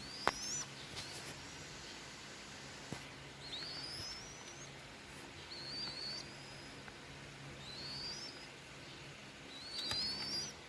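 A bird giving high whistled calls that rise in pitch, about five of them roughly two seconds apart, the last one doubled. Underneath is a faint steady low hum, with a few sharp clicks.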